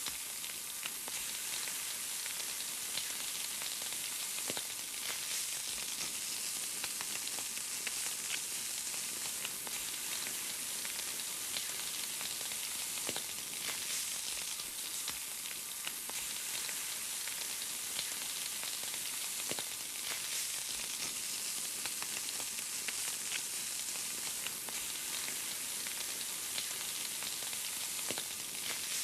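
Chicken sizzling on a grill: a steady hiss of fat and juices cooking, with scattered small pops and crackles.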